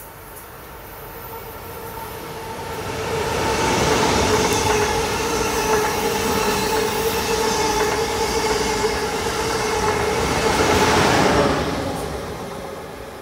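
Amtrak Acela Express high-speed trainset passing close by on the Northeast Corridor. It builds up as it approaches, is loud for about eight seconds with a steady whine over the rumble of wheels on rail, then fades quickly near the end.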